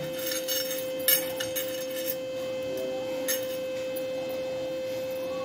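A steady hum at one pitch, with a few faint soft clicks and rustles from hands rolling a stuffed bread slice on a plate.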